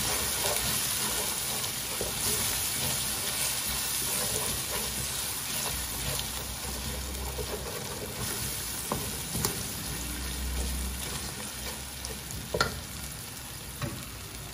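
Sliced onions and tomato paste sizzling in hot oil in a metal pot while a wooden spoon stirs them, a steady sizzle that eases slightly over time. A few sharp clicks cut through it, the loudest near the end.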